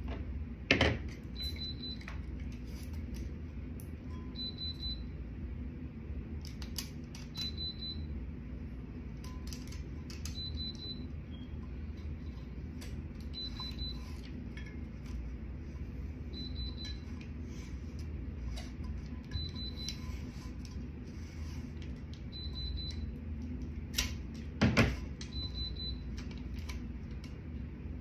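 Tumbler heat press beeping: a short high beep pattern about every three seconds, the signal that the press is up to temperature. A steady low hum runs underneath, with two sharp knocks, about a second in and near the end.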